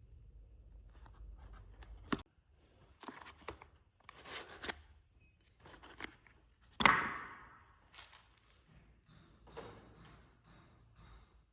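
Small hand tools being handled: an irregular run of knocks, clacks and brief scraping noises, the loudest a sharp clack about seven seconds in with a short ringing tail.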